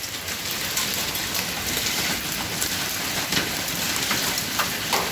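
Heavy rain with large hailstones falling: a steady hiss of rain peppered with many sharp knocks of hailstones striking hard surfaces.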